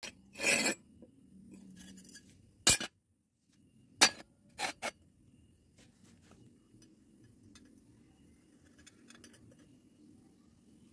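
Steel pipe and square steel tube clinking and knocking as they are handled and set against each other and the concrete floor: several sharp metallic knocks in the first five seconds, then only faint light ticks.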